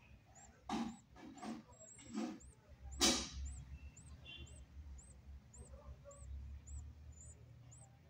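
Pet budgerigars giving four short, harsh calls in the first half, the last the loudest, over a faint high chirp repeating about twice a second.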